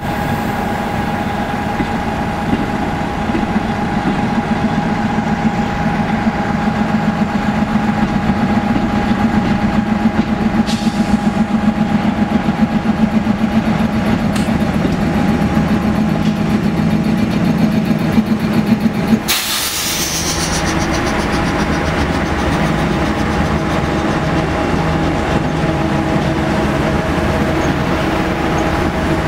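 Diesel locomotives of a narrow-gauge CBH Group grain train passing close by, engines running with a low rhythmic throb under a steady whine. The sound changes abruptly about 19 seconds in, then carries on steadily.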